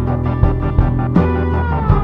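Background music: sustained synthesizer chords over deep drum hits about every half second.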